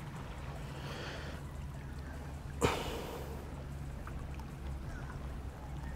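Low steady background of water lapping at shoreline rocks, broken by one short, sudden sound about two and a half seconds in.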